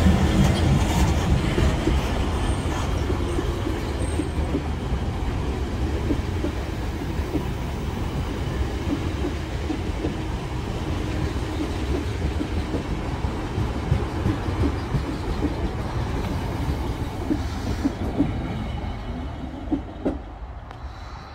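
Passenger carriages hauled by a GBRf Class 66 diesel locomotive rolling past at close range: a steady rumble with the wheels knocking over the rail joints, fading as the train draws away near the end.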